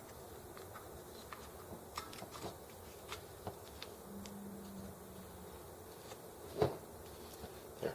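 Small clicks and taps of hands handling wiring and small parts on a model engine, with one louder knock about two-thirds of the way through and a brief low buzz about halfway.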